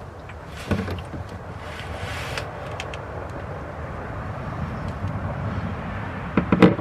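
Engine oil pouring out of the drain-plug hole into a drain pan as a steady splashing hiss that slowly builds. There is a clunk a little under a second in and a louder pair of clunks near the end.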